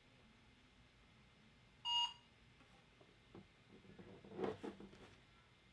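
A single short electronic beep, a clear pitched tone with overtones, about two seconds in. It is followed by faint handling noise a little before the end.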